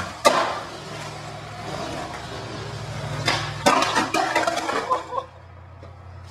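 Skateboard on smooth concrete: a sharp clack just after the start, then a low rolling rumble of the wheels. A flurry of loud board clacks and knocks follows from about three to five seconds in, as the board and rider hit the ground, and after that only a quieter rumble remains.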